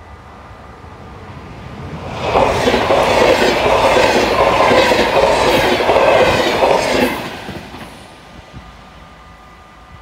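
Yellow double-deck NS passenger train passing at speed: a rush that builds, then a few seconds of loud, rhythmic wheel clatter over the rail joints, fading away about eight seconds in.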